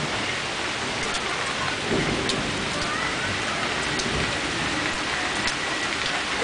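Steady heavy rain, with single drops ticking sharply close by. Low rumbles of thunder swell about two and four seconds in.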